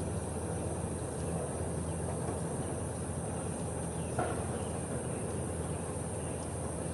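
Steady outdoor background noise: a low, constant rumble with an unbroken high-pitched drone over it, likely insects, and one short sound about four seconds in.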